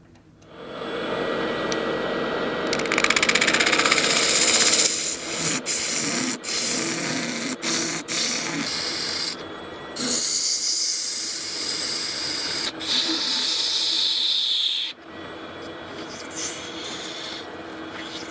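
Lathe tool cutting a spinning cast-resin block: a steady scraping hiss with a few sharp clicks, stopping abruptly several times.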